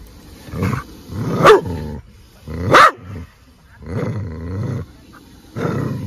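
A dog barking and growling at a hooded cobra in about five separate outbursts, the two loudest sharp barks about a second and a half and three seconds in, with a longer growling stretch after them.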